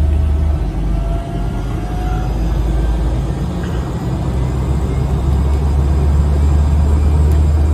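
Small propeller aircraft's engine running, heard inside the passenger cabin as a loud, steady low drone; it eases a little about a second in, then builds back up.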